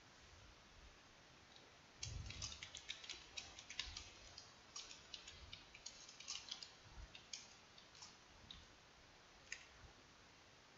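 Computer keyboard typing: quick, uneven key clicks starting about two seconds in and stopping shortly before the end.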